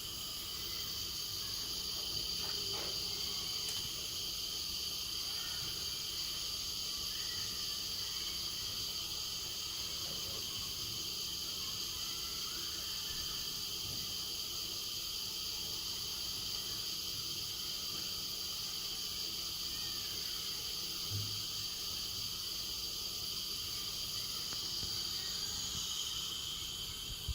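Gas stove burner flame hissing steadily: an even, high-pitched hiss with no break.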